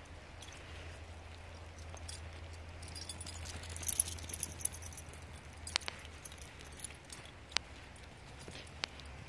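Metal jingling and scattered sharp clicks of dog tags and leash clips on dogs walking on leashes, with a cluster of clinks about four seconds in, over a steady low hum.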